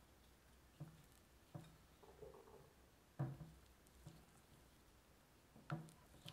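Silicone spatula stirring thick financier batter in a glass bowl: faint squishing of the batter with several soft knocks of the spatula against the bowl, the loudest about three seconds in and again near the end.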